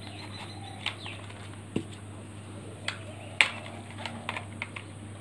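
Plastic parts of a toy drone clicking and knocking together as they are handled and fitted. There are a few sharp clicks spread through, the loudest a little past the middle.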